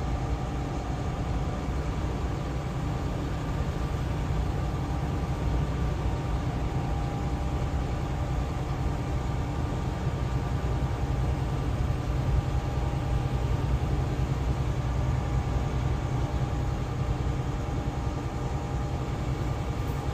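Steady cab noise of a Freightliner semi-truck cruising at highway speed: a low, even drone of diesel engine and road noise, with a faint steady whine above it.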